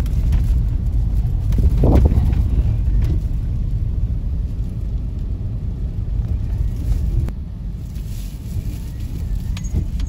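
Car road noise heard inside the cabin: a steady low rumble of tyres running over rutted, icy packed snow, with a brief louder swell about two seconds in and a slight easing after about seven seconds.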